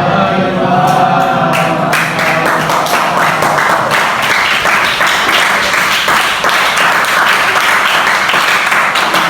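A class of students answering the Islamic greeting in unison, then clapping from about two seconds in. The applause goes on steadily to the end.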